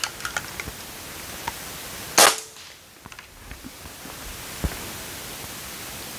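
A single suppressed shot from a Benjamin Armada PCP air rifle fitted with a 3D-printed suppressor (internal baffle design E) about two seconds in: one sharp crack with a brief ring. It reads about 101 dB on the sound meter beside the muzzle. A few light clicks come before it and a faint knock follows later.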